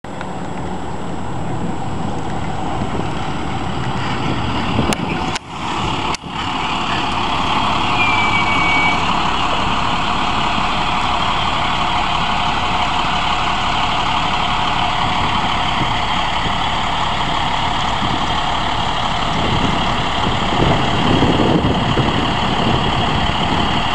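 School bus engine running steadily as the bus approaches and stands idling at its stop, with a short high squeal about eight seconds in.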